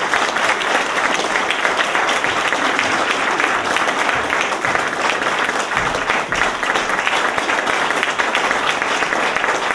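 Audience applause: many hands clapping at a steady, fairly loud level.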